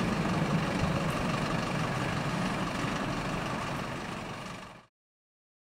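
Airbus A320's CFM56 turbofan engines heard from the ground as the airliner climbs away after takeoff: a steady jet rumble that slowly fades, then cuts off abruptly near the end.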